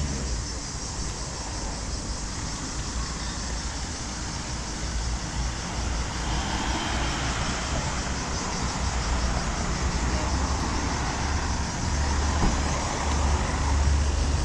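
Street traffic: cars and other vehicles running past, with a low rumble that grows louder near the end.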